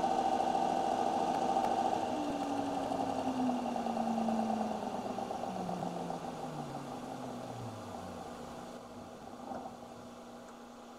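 Large DC electric motor from a combat robot running unloaded on a bench power supply, humming steadily, then winding down. After about two seconds its pitch falls steadily and the sound fades as it slows. It runs smoothly: the motor is fine.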